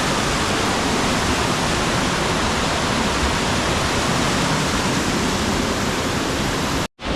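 Steady, loud rush of a waterfall, with a brief break to silence near the end.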